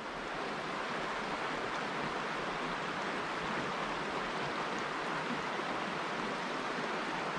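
Shallow stream running over rocks and gravel: a steady, even rush of water.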